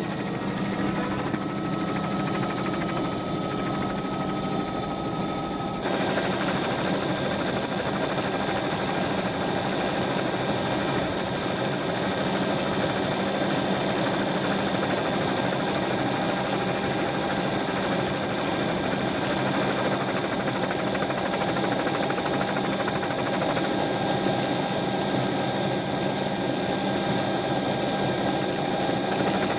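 Helicopter engine and rotor noise heard from on board, a steady drone with a constant whine over it. It gets louder and fuller about six seconds in.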